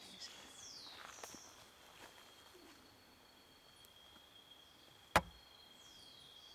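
Forest ambience of insects trilling steadily on a high pitch, with a few high whistled notes that slide downward near the start and again near the end. A single sharp click about five seconds in. The wood-quail's own low song is not heard.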